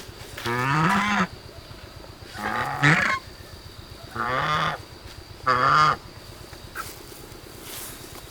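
Geese honking: four separate calls in a row, each rising in pitch.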